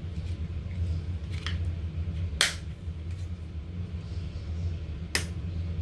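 Slime being handled, giving two sharp pops a few seconds apart with a fainter one before them, over a steady low hum.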